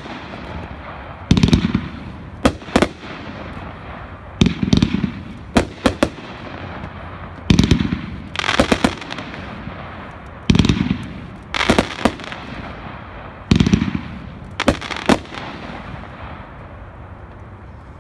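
A 500-gram consumer fireworks cake firing single shots about every three seconds. Each shot is a low launch thump followed about a second later by sharp bursting reports overhead. The cake finishes about three-quarters of the way through.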